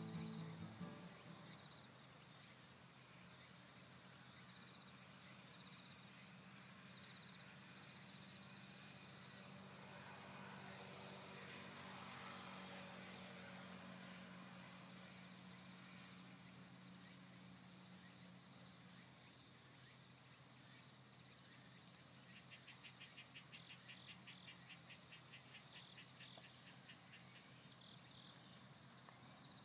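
Faint outdoor insect chirping: a steady pulsing high trill, joined about three-quarters of the way through by a second, faster trill. A faint low hum sits underneath and fades out about two-thirds of the way in.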